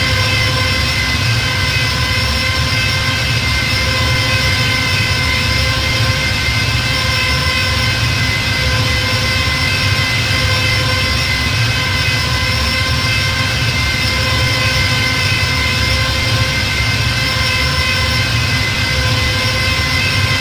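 TIE fighter engine sound effect as a continuous ambient loop: a steady engine whine of several held high tones over a low rumble and hiss, without change.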